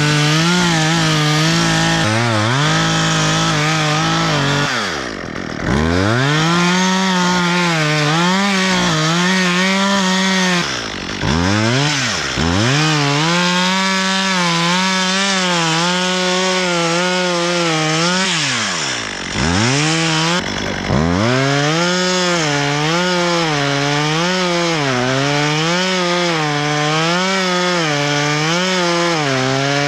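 Gasoline chainsaw running at high revs while cutting wood, its pitch wavering as the chain meets the wood. Several times it drops toward idle and revs back up: about five, eleven to twelve, and nineteen to twenty seconds in.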